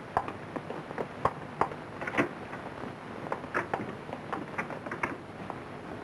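A run of light taps and clicks, about two to three a second, over the steady hiss of an old film soundtrack.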